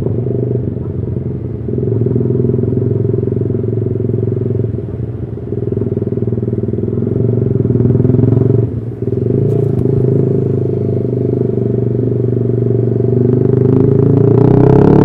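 Yamaha R15 V3's 155 cc single-cylinder engine running through a custom exhaust, with a short drop-off about nine seconds in and a build in level near the end.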